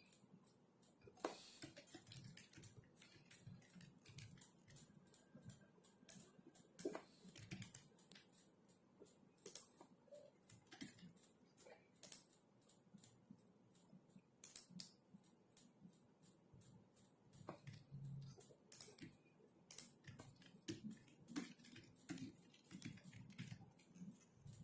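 Faint typing on a computer keyboard: quick, irregular runs of keystroke clicks, several a second, with short pauses between runs.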